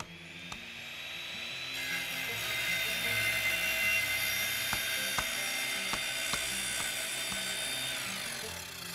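High-speed power tool running with a steady high whine. It builds up over the first two seconds and stops near the end, with a few light clicks along the way.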